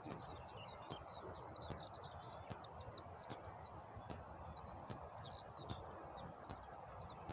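A songbird singing a continuous run of quick, high chirps and twitters over faint steady background noise.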